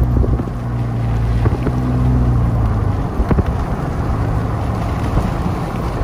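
A car driving on a wet highway, heard from inside: steady tyre hiss and road noise over a low drone, with some wind. The low drone eases off about three seconds in.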